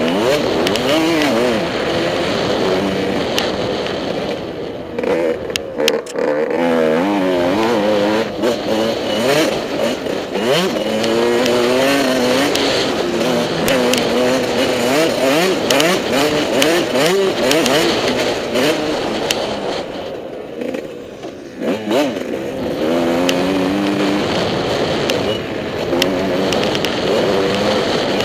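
Motocross bike engine revving hard, its pitch climbing and dropping again and again as the throttle is worked through the gears. The throttle is briefly shut off twice, about five seconds in and again around twenty seconds in, before it picks up again.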